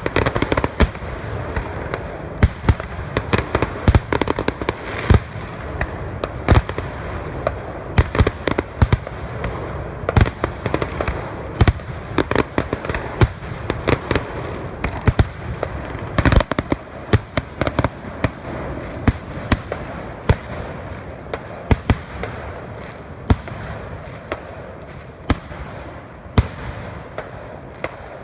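Fireworks going off without a break: sharp bangs and crackles at an irregular pace, several a second, over a steady crackling bed.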